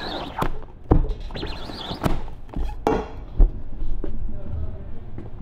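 Rubber squeegee dragging black plastisol ink across a silkscreen's mesh in rasping strokes, with several sharp knocks from the manual screen-printing press and its frame.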